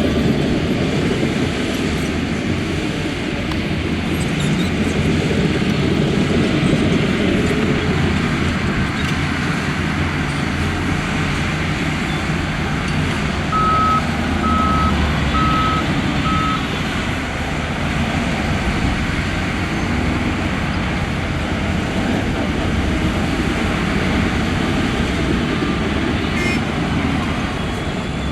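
Heavy diesel engines of a Shantui bulldozer and a dump truck working steadily. A little past halfway, a reversing alarm beeps four times, and it beeps faintly again near the end.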